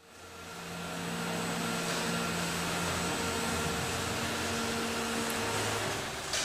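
Robotic bottle palletising line running: a broad machinery hum with several steady motor whines, fading in over the first second. The whines stop a little before a sharp clack near the end.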